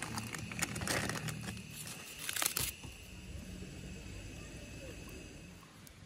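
Brown paper wrapping being crinkled and pulled off the neck of a glass shochu bottle, with a louder rip about two and a half seconds in.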